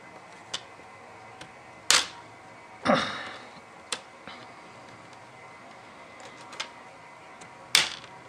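Plastic snap clips of an HP 2000 laptop's screen bezel popping loose as a pry tool works along the edge: three loud sharp snaps, the second a longer crackle of flexing plastic, among a few lighter clicks.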